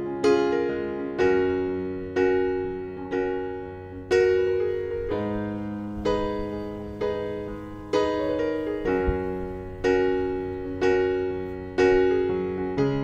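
Background music: slow, gentle piano chords and notes, struck about once a second and each left to ring and fade.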